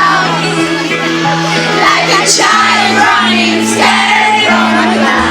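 Live music with long held chords, voices singing over them, and high shouts and whoops from the crowd.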